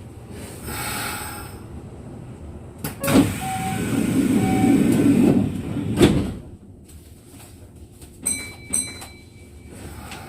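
Kintetsu 1233-series train's passenger sliding doors closing: a sharp click, a few seconds of rushing as the doors slide, and a heavy thud as they shut about six seconds in, followed by two short clicks.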